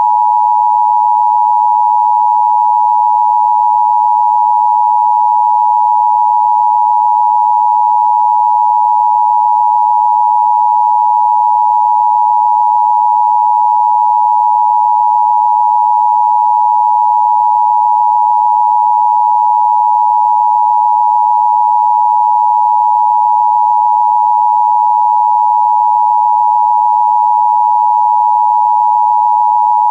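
Emergency Broadcast System attention signal: a loud, steady electronic two-tone sound near 1 kHz, held without a break.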